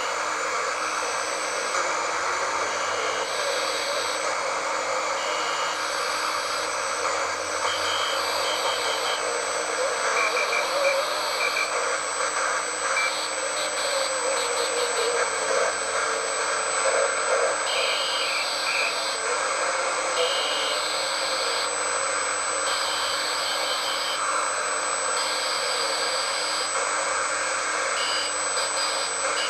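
Shortwave radio static on about 7520 kHz, a steady hiss through a cheap receiver's speaker. Over it come on-off keyed Morse code beeps and other keyed tones in short repeating groups.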